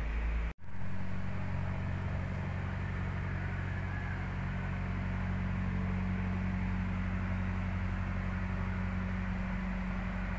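Steady low mechanical hum with a rushing hiss over it, cutting out for an instant about half a second in.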